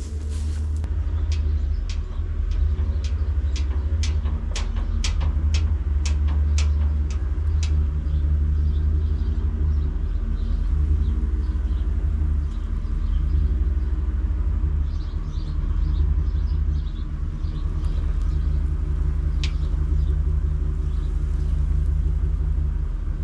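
Engine of a piece of farm equipment running steadily while it is driven slowly into position, with a series of sharp clicks or knocks over the first several seconds.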